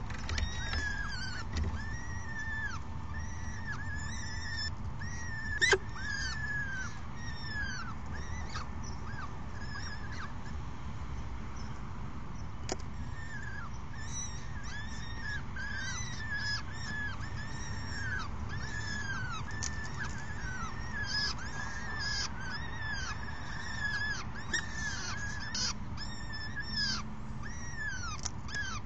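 Peregrine falcons calling in the nest box: a steady run of short arched calls, about two or three a second, with higher, thinner calls over them throughout. A single sharp knock about six seconds in.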